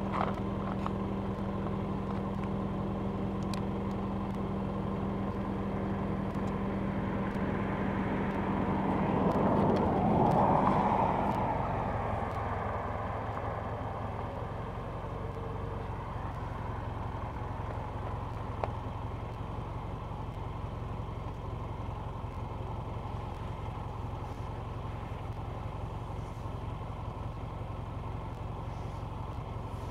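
A motor vehicle passing by, over a steady low hum: it swells to its loudest about ten seconds in and then fades.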